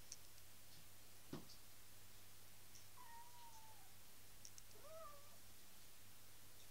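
Exotic Shorthair kitten mewing faintly twice: a drawn-out mew about three seconds in that falls slightly in pitch, then a shorter one about five seconds in that rises and falls. A soft knock about a second in.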